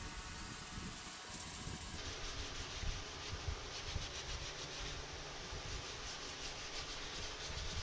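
Hand sanding with a sanding sponge on a white plastic helmet shell, rubbing back and forth in repeated strokes to smooth seam lines filled with spot putty.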